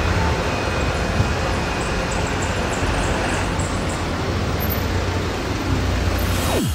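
Steady roadside traffic noise: a low rumble under an even hiss, cutting off suddenly near the end.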